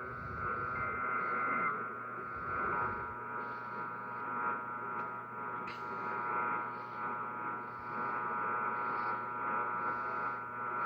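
Emergency Alert System test received over a weak, noisy radio signal. A short SAME header data burst sounds about a second in. From about three seconds the steady two-tone attention signal is held under constant radio hiss and hum.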